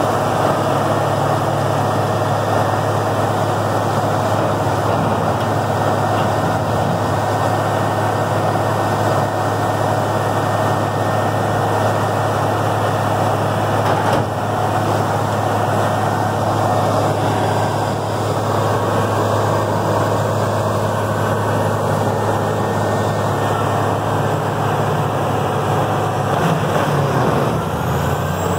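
Morbark 4600XL tracked horizontal grinder running under load, its Caterpillar C27 diesel engine giving a steady low drone over the noise of wood being ground.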